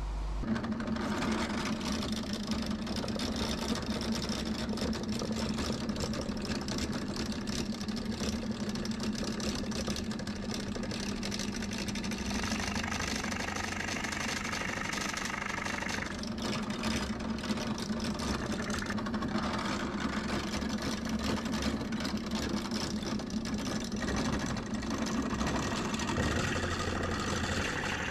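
Drill press running, a large boring bit cutting a hole into a round jatoba mallet head clamped in a vise. A steady motor hum sits under the cutting noise, and the cutting noise shifts several times as the bit works.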